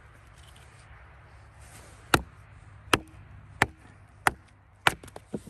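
A Fiskars hatchet chopping dry, seasoned wood, thought to be oak, on a chopping block: five sharp chops about two-thirds of a second apart starting about two seconds in, then a few lighter knocks near the end.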